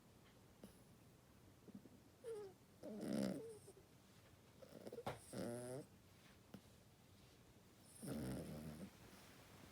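Toy poodle snoring with croaks like a bullfrog: three snores a few seconds apart, about three, five and eight seconds in.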